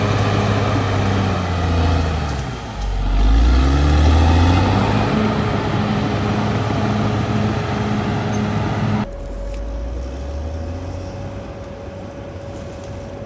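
Caterpillar D6R XL bulldozer's diesel engine working under load; its note sags about two seconds in and then picks back up. About nine seconds in, the sound cuts abruptly to a quieter, steady engine hum.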